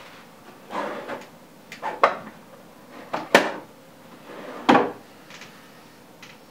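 Objects handled at a desk: about five separate knocks and clacks, as things are picked up and put down, the two sharpest about three and a half and nearly five seconds in.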